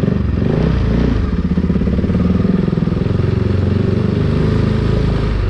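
KTM RC 390's single-cylinder engine running loud and steady through a full-system Akrapovic aftermarket exhaust, with small rises and falls in its note.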